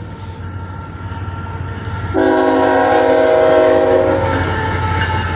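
Diesel freight locomotive's air horn sounding one steady blast of about two seconds, starting about two seconds in, over the low rumble of the approaching train.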